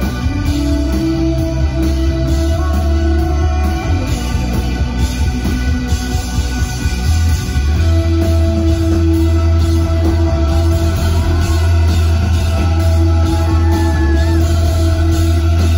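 Rock band playing live through a concert PA, heard from the audience: electric guitars over held bass notes and drums, the sound growing fuller and a little louder about halfway through.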